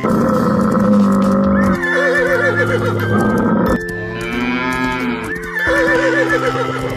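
Horses whinnying, with quavering calls twice, over background music of held notes.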